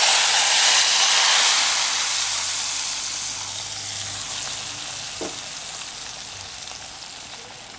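Hot ghee with fried cashews and raisins poured from a small tempering pan into coconut-milk dal payasam, sizzling loudly at once and then slowly dying away.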